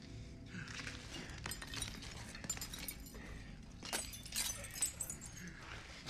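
Glass shattering and breaking, with scattered sharp cracks and clinks of falling pieces. The loudest cracks come about four and five seconds in.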